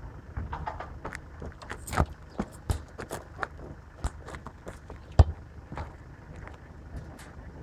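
A run of irregular sharp clicks and knocks, with a loud thump about five seconds in and a smaller one about two seconds in, over a steady low rumble.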